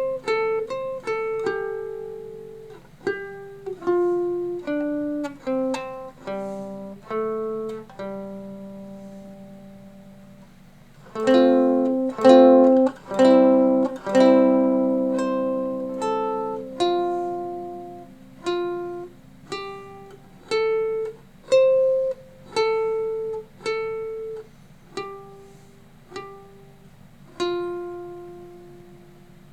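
Plucked string instrument played through a pedal-sized low-power Acorn Amps Biz Card amplifier into a roughly 60-year-old 4-by-7-inch oval speaker in a small homemade cabinet. Single notes ring and fade one after another, with a brief run of strummed chords about eleven seconds in. A faint low hum runs underneath.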